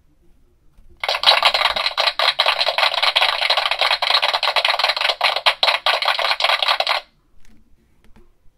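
Novelty sound-effects box playing a recorded effect through its small, tinny speaker: about six seconds of dense, fast rattling noise that starts about a second in and cuts off suddenly.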